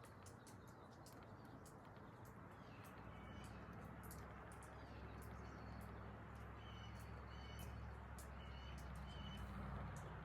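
Faint bird calls: short paired chirps at one pitch, repeating every second or two, over a low steady rumble, with scattered faint ticks.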